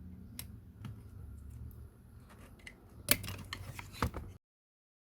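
Plastic clicks and rattling from hands working the wiring connector off an HVAC blower motor, with a sharp cluster of clicks about three seconds in and another a second later. The sound then cuts off abruptly.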